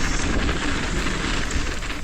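Mountain bike rolling fast down a dirt trail: a steady rumble and rush of tyres on the ground and wind on the microphone, with small scattered clicks and rattles.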